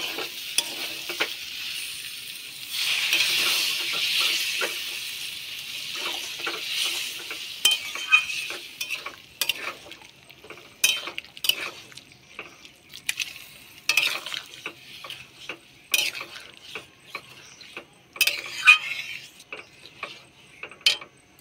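Chickpea cooking water is poured into a hot aluminium karahi of fried, spiced chickpeas and sizzles for the first few seconds. After that a metal spatula stirs and scrapes against the pan in quick, irregular strokes.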